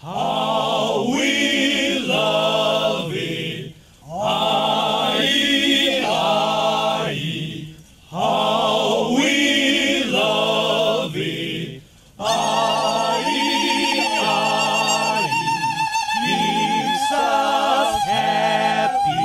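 Group of young men singing a Naga folk-tune drinking song in praise of rice beer ("aie, aie"), in phrases of about four seconds with short breaks between. From about twelve seconds in, a long high note with a wavering pitch is held over the group's singing.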